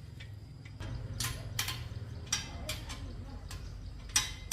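Sharp metallic clicks from bicycle repair work, about two or three a second, over a low steady hum.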